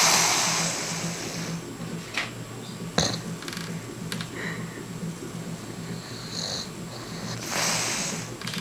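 A man snoring in his sleep: a loud snoring breath at the start and another about seven and a half seconds later, with a sharp click about three seconds in.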